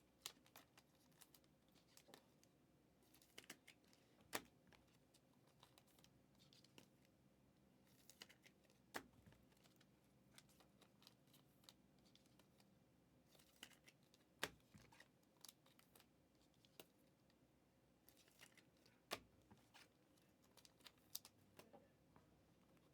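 Trading cards being handled and flipped through: faint, scattered clicks and short swishes of cards sliding against each other, with a few sharper snaps.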